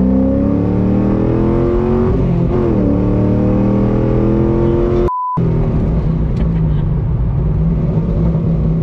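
Cammed car's engine accelerating hard, heard from inside the cabin: its pitch climbs, dips at a gear change about two and a half seconds in, and climbs again. About five seconds in the engine sound drops out briefly for a short steady beep tone, after which the engine runs at steadier revs.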